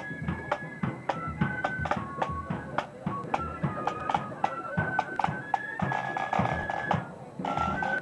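Marching band playing: snare drums beat a steady rhythm under a high-pitched melody. There is a short break about seven seconds in before the next phrase.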